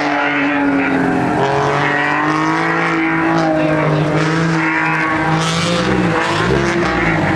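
Car engine running at high revs on an autocross course, holding one steady note for several seconds, then rising and falling in pitch over the last couple of seconds.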